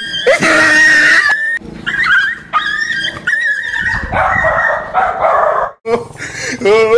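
A dog barking and yelping in alarm at a toy tiger swung at it.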